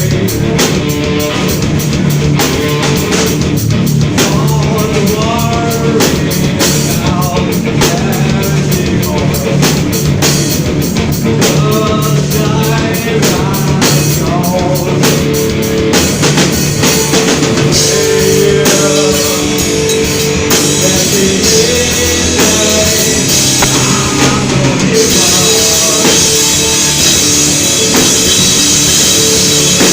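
Rock band music with a driving drum kit and guitars, and some singing.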